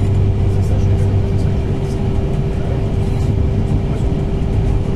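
Steady running noise inside a moving regional train: a low rumble of wheels on the track under a constant hum.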